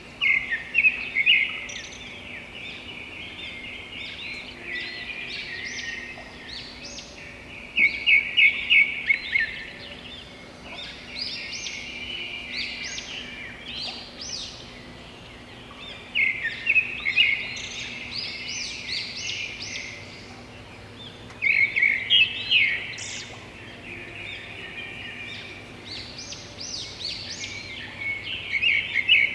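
Birds chirping and calling without pause, with loud bursts of quick repeated chirps about every six seconds.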